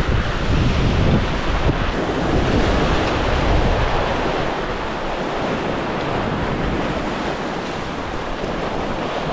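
Ocean waves breaking and washing over a rock ledge as foaming white water, with wind buffeting the microphone; the wind rumble eases about halfway through.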